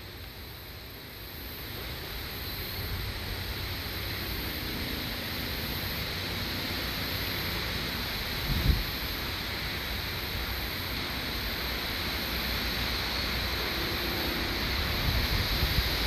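Wind blowing across the microphone in high winds, a steady rushing noise that slowly grows louder. There is one low buffeting thump about eight and a half seconds in.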